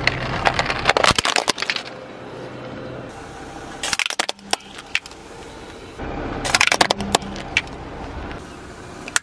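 A car tyre rolling over and crushing small plastic toys and objects on asphalt: three separate bursts of cracking and snapping, about a second in, around four seconds in, and again around seven seconds in, over the low hum of the car.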